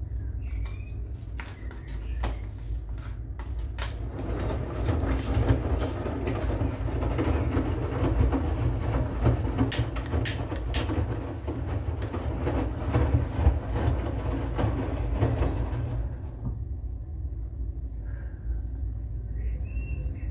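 Front-loading washing machine mid-wash: a steady low hum from the machine, and for about twelve seconds in the middle the drum turns and wet laundry sloshes and splashes in soapy water, with a few sharp clicks, before the drum stops.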